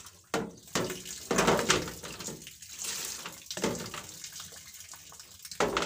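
Water poured from a plastic dipper into a glass jar in several short, uneven splashing pours, the longest about a second and a half in, with a sharp knock near the end.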